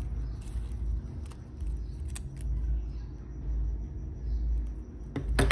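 Cutting the mini kite's material by hand: a few light clicks, then a quick run of sharp snips about five seconds in, over a steady low rumble.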